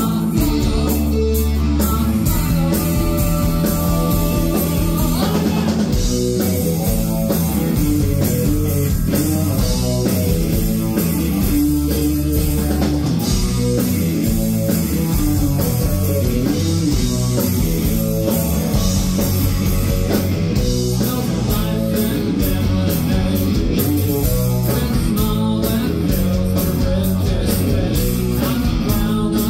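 Live rock band playing: a man singing lead over electric guitar, bass guitar and a Pearl drum kit.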